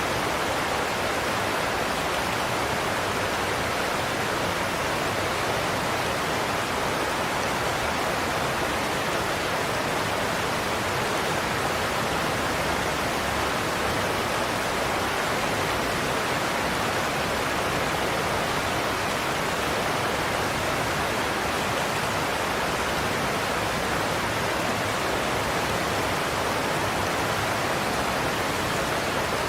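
Large waterfall, Godafoss, pouring over a cliff: a steady, even rush of falling water with no changes.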